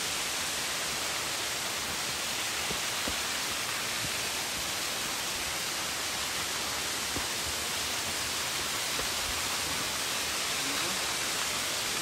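Steady rushing of a 22 m branching waterfall, an even hiss with no change in level.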